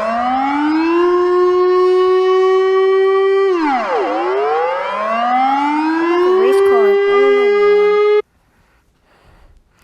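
Civil defence warning siren from a Netherlands emergency alarm. It winds up to a steady tone, falls away about three and a half seconds in, winds up and holds again, then cuts off abruptly about eight seconds in.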